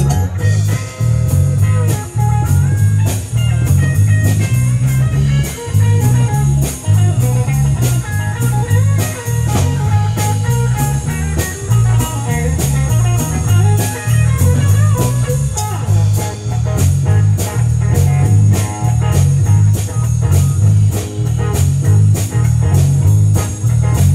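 Live band playing with no singing: electric guitar lines over a bass guitar and a drum kit keeping a steady beat.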